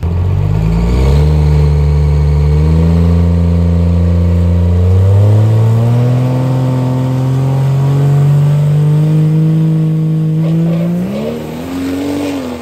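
Cummins diesel drag truck making a full-throttle pass. The engine note climbs in pitch as the truck pulls down the track, rising sharply about eleven seconds in before dropping away at the end.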